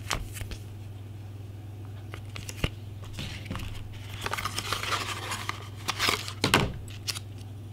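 Paper and cardboard packaging rustling and crinkling as it is handled and lifted out of a box, with a few sharp clicks and a louder crinkle near the end. A steady low hum runs underneath.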